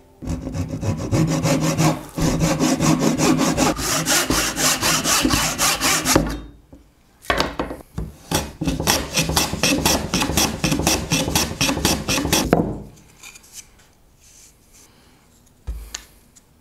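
A hand tool scraping across wood in rapid, even back-and-forth strokes, about six a second, in two bouts of some five to six seconds with a short pause between. A single dull knock comes near the end.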